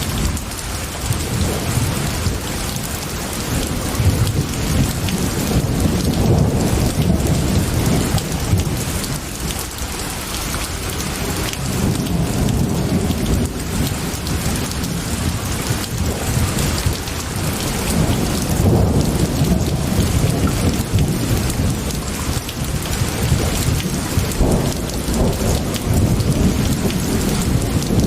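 Steady heavy rain hissing with rolling thunder. Long low rumbles swell and fade several times underneath.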